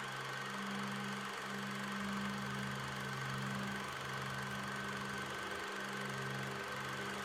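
Background music of slow, held low notes that shift every second or so, over a steady hiss and a thin high tone.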